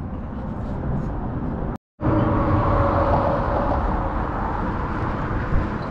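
Steady road-traffic noise from vehicles on the bridge, with a brief cut to total silence about two seconds in.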